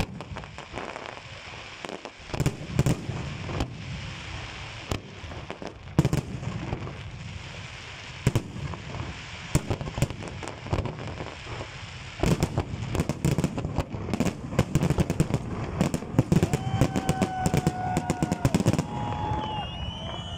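Fireworks display: aerial shells bursting with sharp bangs and crackle, building into a dense, rapid barrage that stops shortly before the end.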